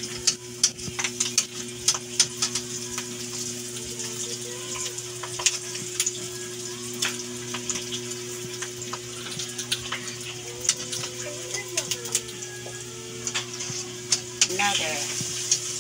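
Pork belly slices deep-frying in hot oil in a wok: a steady sizzle broken by many sharp crackles and spattering pops of the oil, over a steady low hum.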